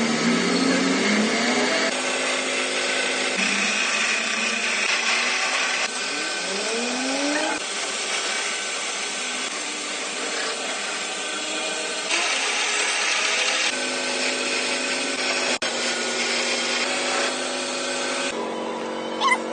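CNC lathe running and machining, a steady machine whine with several held tones. Its pitch rises twice a little before the middle, and the sound changes abruptly a few times.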